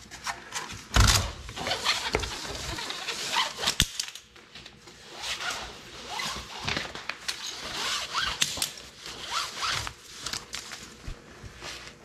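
Ratchet strap being released and worked off a rubber ATV track: the ratchet clicks and snaps and the nylon webbing rasps as it is pulled through, with a heavy thump about a second in.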